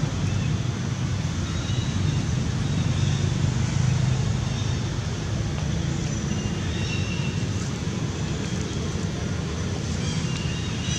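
Steady low outdoor rumble with a hiss above it, swelling a little about four seconds in, with a few faint short high chirps after the middle and near the end.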